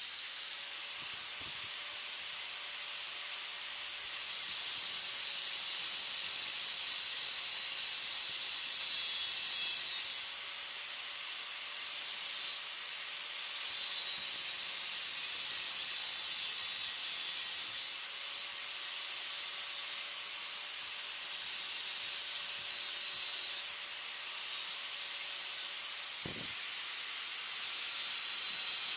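Angle grinder with a thin cut-off disc running steadily while cutting a slot into a sheet-steel channel: a high, steady motor whine over a hissing cutting noise. The lower tone dips briefly near the end.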